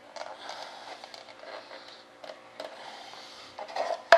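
Hands handling plastic airline tubing and small fittings on a wooden box: soft rustling and scattered small clicks over a faint steady hum, with a sharp knock near the end.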